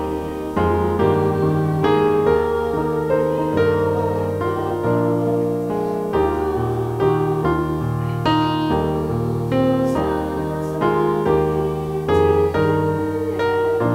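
Electronic keyboard set to a piano sound, playing slow held chords that change about once a second.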